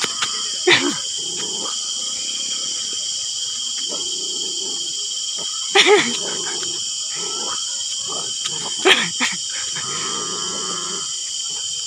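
A dog barking in short, sharp bursts, loudest about six and nine seconds in, over a steady high-pitched insect drone.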